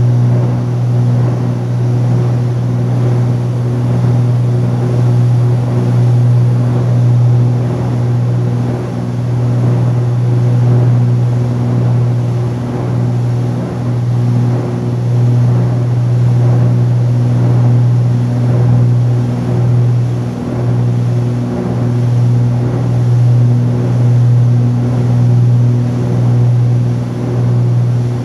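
The Cessna 310Q's twin six-cylinder piston engines and propellers droning steadily in flight, heard from inside the cabin as a loud low hum that swells and eases every second or two.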